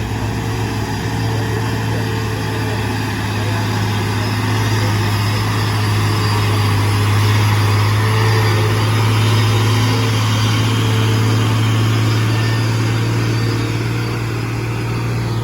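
Heavy truck's diesel engine running under load with a steady low drone, growing a little louder in the middle and easing off near the end.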